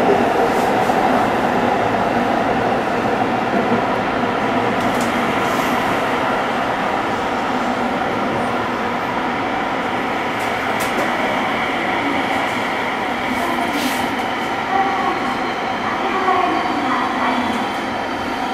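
Tsukuba Express electric commuter train running at speed, heard from inside its rear cab. A steady rumble of wheels rolling on the rails, with a few faint clicks, easing slightly in loudness over the stretch.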